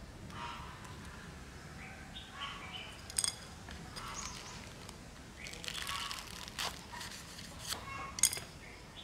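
Sharp clicks and taps from handling a plastic planting basket as stem cuttings are pushed through its holes, the loudest about three seconds in and again near the end, over a background of short high calls.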